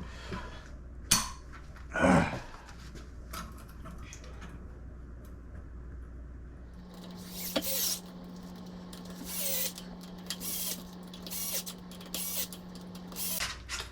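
Scattered clicks, knocks and scrapes of hand tools and bike parts being handled while a hydraulic disc brake kit is fitted, over a steady low hum whose pitch steps up about halfway through.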